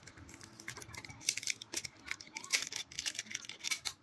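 Quick crackling and small plastic clicks from hands handling a replacement phone LCD panel against the phone's frame. They grow dense about a second in and last until near the end.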